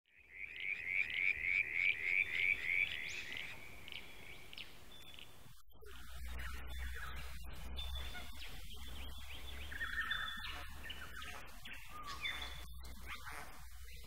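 A small frog calling, a run of about nine quick rising chirps, followed from about halfway by scattered bird chirps and calls over a low steady rumble.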